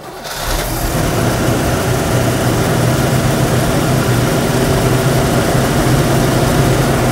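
Chevrolet 327 small-block V8 on a freshly installed Edelbrock carburetor, starting on its first startup after the install: it builds up over the first second and then runs at a steady idle.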